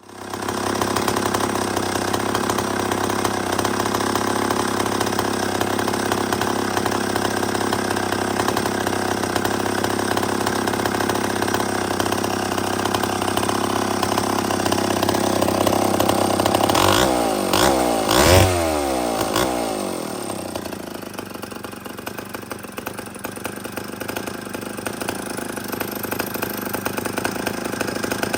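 Two-stroke engine of a Wright C-50 chainsaw running steadily, then briefly revved up and down about two-thirds through before settling to a quieter idle.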